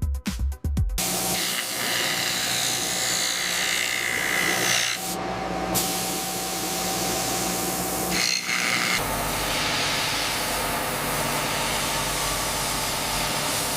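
Steady hissing mechanical noise with a low hum, shifting in character abruptly about five and nine seconds in; a music beat ends about a second in.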